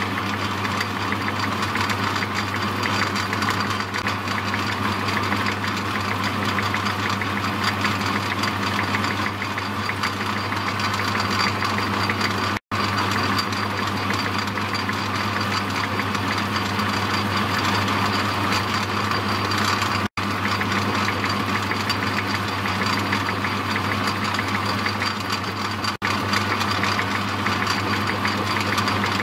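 Myford metalworking lathe running steadily, its motor humming and its gear train driving the carriage through a light dry thread-cutting pass on a 0.8 mm metric thread. The sound cuts out for an instant three times.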